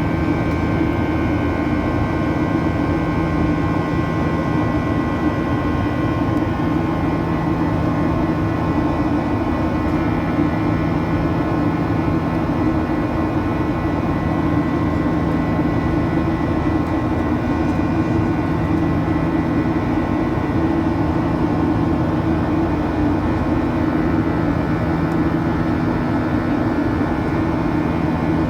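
Boeing 737-800's CFM56-7B jet engines running as a steady, even drone, with several constant tones over the roar and no change in pitch or level.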